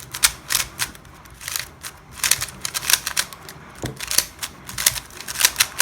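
Yuxin Kylin V2 M magnetic 3x3 speedcube being turned by hand: quick, irregular clusters of plastic clicks and clacks as the layers turn and snap into place.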